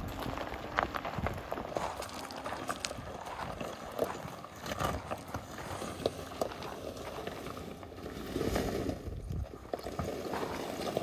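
Large off-road tyres of a GMC Hummer EV crunching and crackling over loose gravel and rocks as the truck rolls slowly, with scattered footsteps on the gravel.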